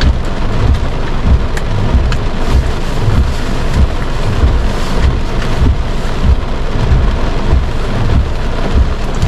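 Heavy rain drumming on a car's roof and windshield, heard from inside the cabin: a dense, steady hiss over a constant low rumble, with a few sharp drop ticks.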